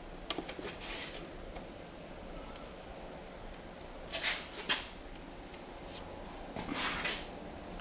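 Faint clicks and handling noise from working a piston's oil ring into a ring compressor, with a sharper click a little before five seconds in. Two short breathy hisses come around four and seven seconds in, over a steady high-pitched whine.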